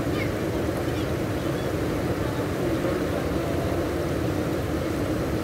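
Steady rushing of muddy floodwater flowing fast over the ground and around a person's feet, an even low noise without breaks.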